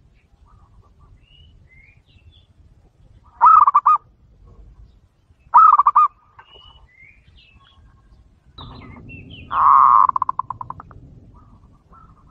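Zebra dove (perkutut) cooing: two short pulsed coos about two seconds apart, then near the end a longer coo that breaks into a rapid stutter and fades out.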